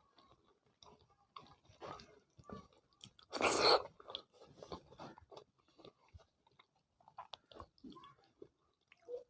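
Close-up chewing of rice with vegetable curry and dal: soft, wet mouth clicks and smacks, with one louder noisy burst about three and a half seconds in.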